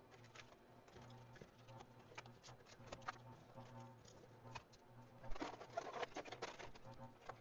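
Faint clicks, taps and rattles of metal and plastic parts being handled as a VCR's tape mechanism and circuit boards are fitted back into the player's metal chassis, with a busier run of knocks about five to six seconds in. A faint steady low hum underneath.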